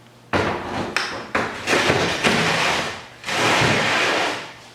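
Overdrive parts being handled on a workbench: several knocks and clunks over the first two seconds, then about a second of scraping noise.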